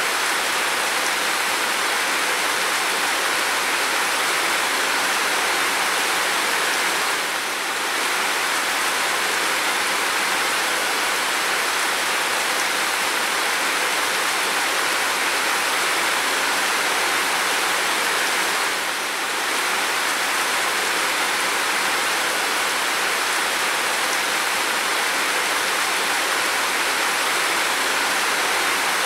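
Steady heavy rain falling on a window and roof: a dense, even hiss of drops that dips briefly twice.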